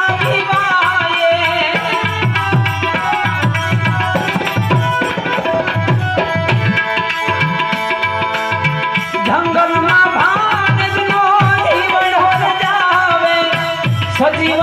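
Harmonium playing a bhajan melody over a steady tabla beat, the reed notes held for seconds at a time.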